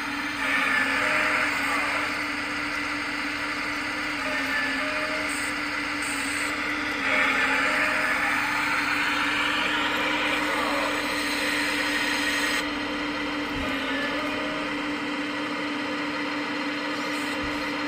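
1/14-scale RC hydraulic excavator's pump running with a steady whine, with a rushing hiss that swells about half a second in and again around seven seconds in as the arm and bucket move.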